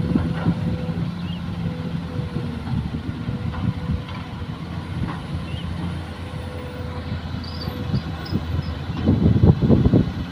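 Kobelco hydraulic excavator's diesel engine running steadily with a faint steady whine, turning louder and uneven about nine seconds in as the bucket digs into the soil bank.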